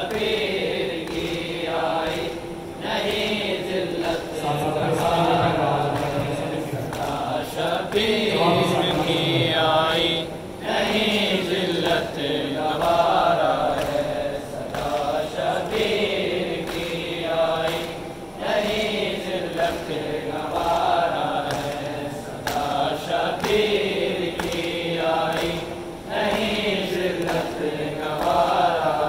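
Voices chanting a melodic Muharram lament for Imam Husain, in long rising and falling phrases with short breaks between them.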